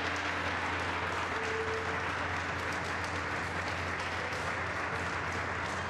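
A group of around thirty people applauding steadily, many hands clapping at once.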